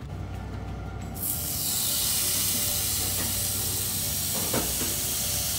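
Food frying in a hot pan: a sizzle starts suddenly about a second in and holds steady, with a couple of light knocks near the end.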